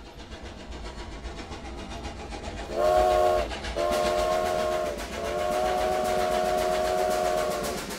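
Steam locomotive chugging and slowly growing louder, then its chime whistle blowing three times, the last blast long and steady.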